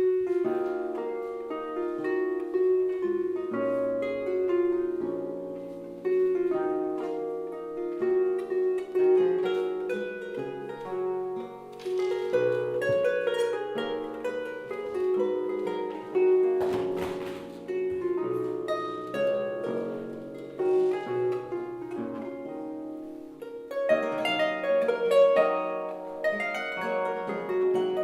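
Instrumental introduction played by a baroque early-music ensemble: Celtic harp and plucked strings over held melody and bass notes, with no voice.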